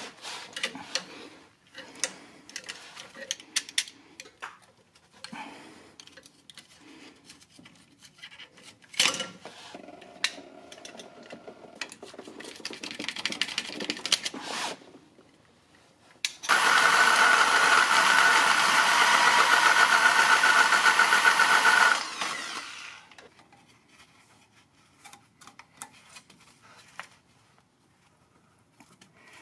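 Light metal clicks and taps of hand tools on the transmission cooler line fittings. About halfway through, a small motor starts abruptly, runs loud and steady for about five seconds, then stops.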